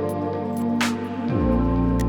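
Background music of sustained synth-like tones, with a low note sliding downward about a second and a half in. One short sharp click sounds a little under a second in.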